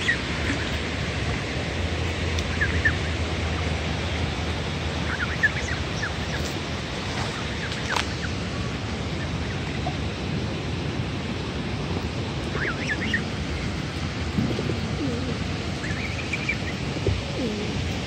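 Steady rushing of a waterfall, with Canada goose goslings peeping in short, high, rising chirps a few times.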